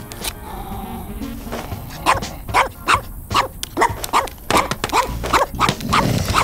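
Many short dog barks in quick succession, several a second, starting about two seconds in, over background music.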